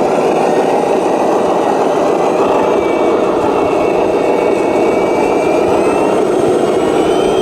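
Radio-controlled model truck running with a steady engine-like drone, and a faint high whine that rises in pitch about six seconds in.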